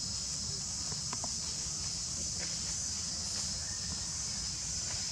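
Steady high-pitched drone of an insect chorus, unbroken throughout, over a low steady rumble, with a few faint ticks of rustling near the start and middle.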